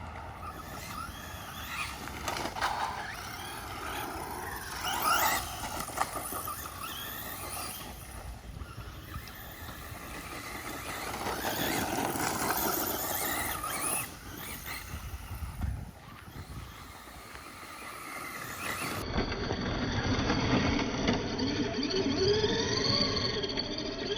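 Electric motor and gear drivetrain of a Traxxas Rustler 2WD RC truck whining, the pitch rising and falling again and again as the throttle is worked.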